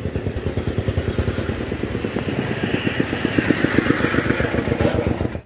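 A small engine running with a fast, even chugging beat. It grows a little louder toward the end, then cuts off abruptly.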